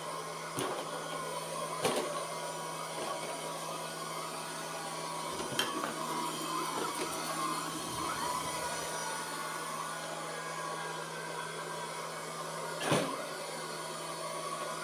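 Robot vacuum cleaner running steadily across a hard floor, a constant motor hum with the whir of its brushes. A few short knocks come through it, the loudest near the end.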